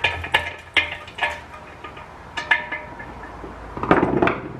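Metal ceiling-fan mounting parts and hardware clinking and knocking together as they are handled and fitted, a series of sharp ringing clinks with a brief rattle near the end.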